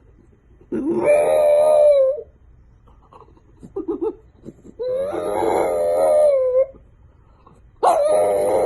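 A dog howling: three long, steady howls of about a second and a half each, with a short lower call between the first two.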